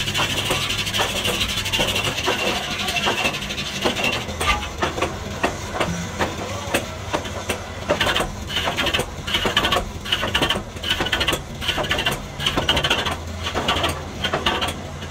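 Metal lathe turning a tractor gearbox housing while a boring tool cuts inside its bore: a steady low motor hum with a high cutting hiss for about the first four seconds, then irregular rapid ticking and clatter with the hiss coming and going.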